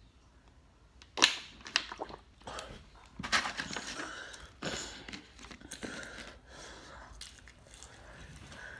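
Close-miked chewing and crunching of chicken tenders and french fries, in uneven bursts with a few sharp clicks, plus light crinkling from handling the foam takeout box.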